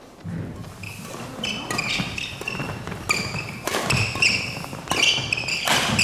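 Badminton doubles rally: several sharp cracks of rackets striking the shuttlecock, about one every half second to a second, mixed with short high squeaks of court shoes on the wooden floor. The sound grows louder as the rally goes on.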